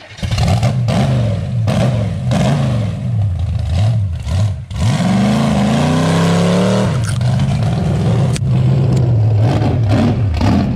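Loud carbureted 383 stroker small-block Chevy V8 in a mud truck, revving under heavy load while towing a loaded gooseneck trailer. The revs rise and fall several times, dip briefly about four and a half seconds in, then climb and hold high.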